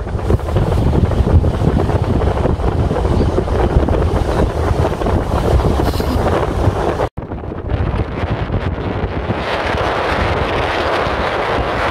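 Wind buffeting the microphone from the open side of a moving car, over low road rumble. The sound drops out for an instant about seven seconds in and returns as a steadier, hissier rush.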